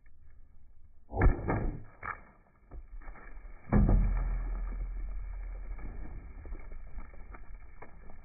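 Large wooden hammer smashing a full beer can on a wooden post, the can bursting and spraying beer, heard in slow motion. Two heavy hits about two and a half seconds apart, the second and louder one trailing into a long, deep, slowly fading rumble.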